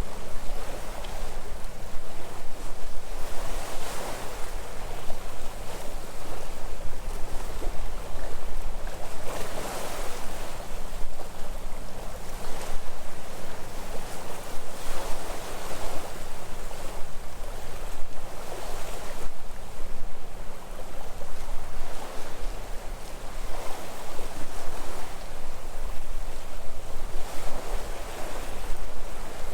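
Sea waves washing onto the shore, swelling and falling back every few seconds, over a steady low hum.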